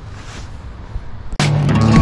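Low wind rumble and road noise from riding in the rain, then outro music starts abruptly about two thirds of the way in and becomes the loudest sound.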